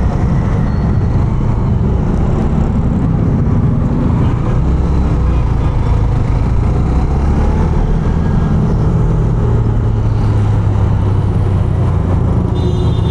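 Honda CB 150F motorcycle under way in city traffic: its engine running steadily, with wind and road noise and other vehicles around it. A brief high steady tone comes in near the end.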